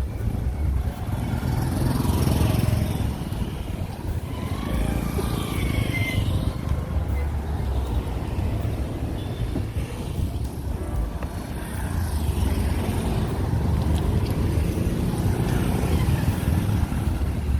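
Road traffic: a steady low rumble of vehicle engines and tyres going on throughout.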